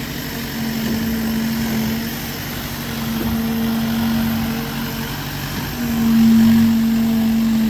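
Heavy construction machinery engine running at a steady pitch over a rumbling bed, swelling louder about six seconds in.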